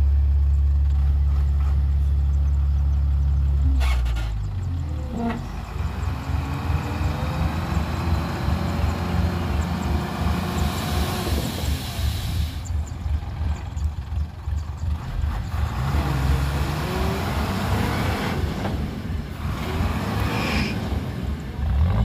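A Hyundai dump truck's diesel engine runs steadily for about four seconds, then turns to a pulsing, labouring note that rises and falls while the tipper bed is raised to dump its sand. About ten seconds in there is a brief hiss.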